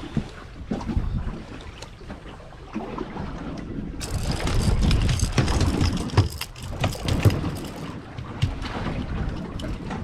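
Wind gusting on the microphone over a boat at sea in rough weather, with scattered knocks. A brighter hiss of wind and spray comes in sharply about four seconds in and eases off near the end.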